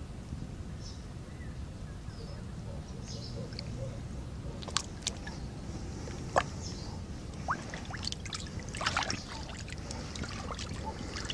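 Water splashing and trickling in short irregular bursts as a large mirror carp is lowered into the lake by hand and held in the water for release, over a steady low rumble.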